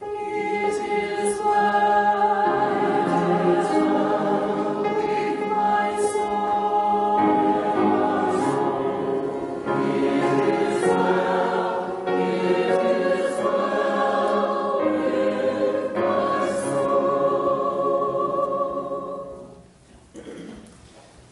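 Church congregation singing a hymn together, phrase by phrase; the singing ends near the close.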